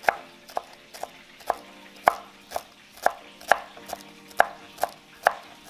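Kitchen knife chopping fresh cilantro on a cutting board: a steady rhythm of sharp knocks as the blade strikes the board, about two a second.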